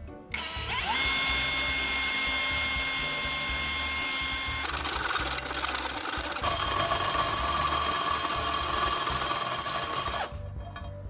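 A handheld electric power tool's motor spinning up with a rising whine about half a second in, then running with a steady high whine. Its sound changes partway through and it winds down shortly before the end, over background music.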